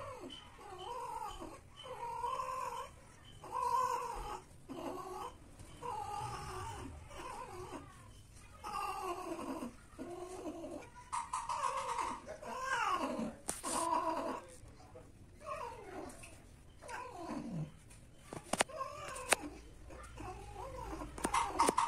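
Cats caterwauling during mating: a run of drawn-out yowls roughly one a second, some falling in pitch, with a longer, louder yowl near the end as the tom mounts the female in heat. A couple of sharp clicks come a little before it.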